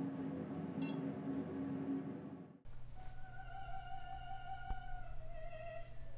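A steady low building hum with a few level tones, cut off abruptly a little over two seconds in. A musician in a practice room then holds long classical notes, each stepping down in pitch.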